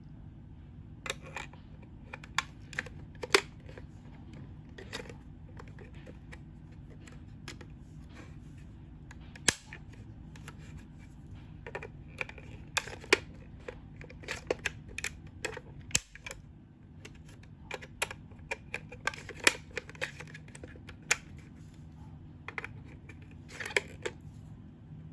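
Irregular sharp clicks and taps, like buttons or keys being pressed, coming in loose clusters over a low steady hum.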